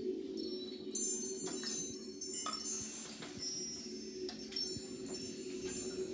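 Wind chimes shimmering, brushed again and again, over a steady low drone, as part of a children's percussion ensemble piece.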